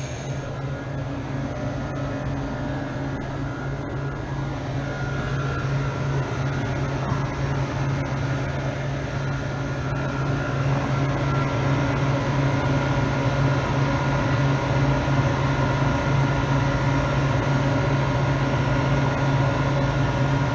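Refrigeration equipment of a walk-in freezer running: a steady low hum with a few faint steady whining tones above it, growing slightly louder partway through.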